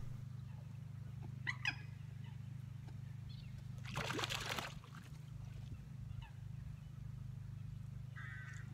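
Pondside ambience: a few faint bird calls and a short noisy splash or rustle about four seconds in, over a steady low hum.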